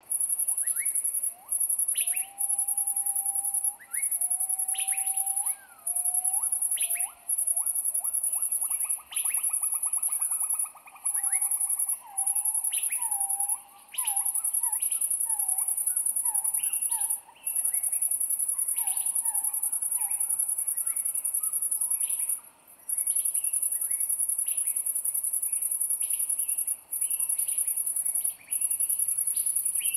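A high, continuous insect buzz comes in long phrases broken by short gaps every second or two. Beneath it are bird whistles and chirps that rise and fall, with a fast trill partway through.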